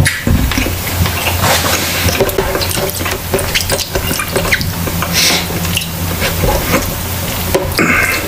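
Close-miked eating by hand: wet chewing and mouth smacks, with fingers scooping rice and food off a tray.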